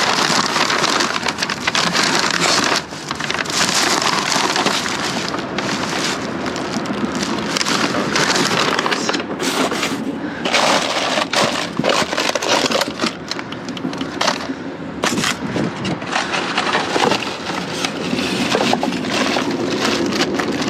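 Rummaging through dumpster trash: cardboard boxes and plastic bags crinkling, crunching and shifting without a break, with many sharp knocks and snaps.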